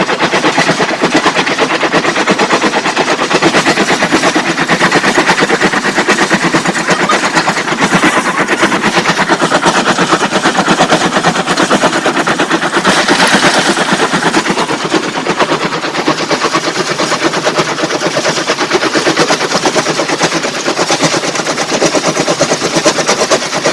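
Heavy diesel machinery running hard: a loud, steady, very rapid clatter that holds on without a break.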